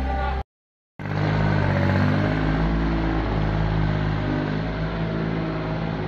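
Thomas LB 85 skid steer's engine running at steady working revs, with a half-second gap of total silence about half a second in before it runs on.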